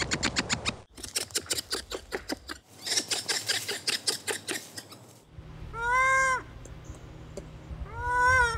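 Ring-tailed lemur calls. For about five seconds there are fast trains of short clicking pulses. Then come two drawn-out calls, at about six and eight seconds, each rising and then dipping slightly in pitch.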